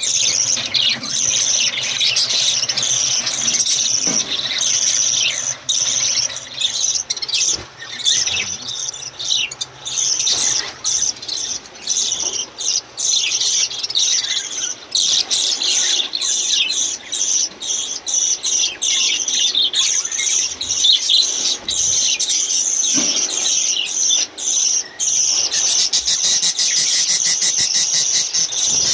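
A flock of budgerigars chattering nonstop, a dense mass of high chirps and warbles.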